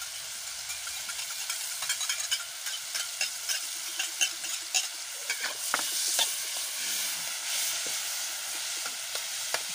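Water spinach (morning glory) being stir-fried in a hot pan: a steady sizzle, with irregular clicks and scrapes from the stirring.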